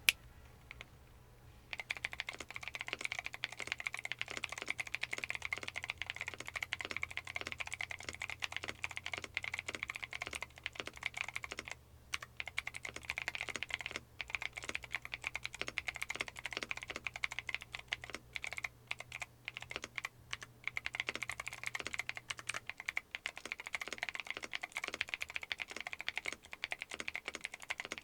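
Typing on a Neo 70 mechanical keyboard fitted with Akko Creamy Cyan clicky switches, whose click jackets give each keystroke a sharp high click. It is a fast, continuous run of keystrokes that starts about two seconds in, with a few brief pauses.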